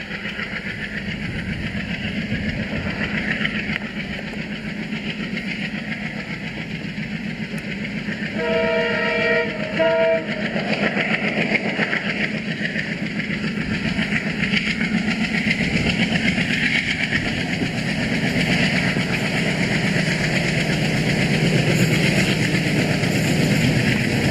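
WDM diesel locomotive approaching with its train, engine running and wheels on the rails, growing louder as it nears. About eight seconds in it sounds its multi-tone horn twice, a longer blast then a short one.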